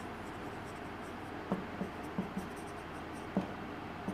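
Marker writing on a whiteboard: a run of short strokes and faint squeaks of the tip, with a couple of sharper taps about a third of the way in and near the end, over steady room hiss.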